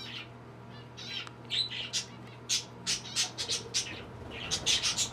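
Budgerigars chirping and squawking in short, high calls, with a quick flurry of calls about four and a half seconds in. A low steady hum runs underneath.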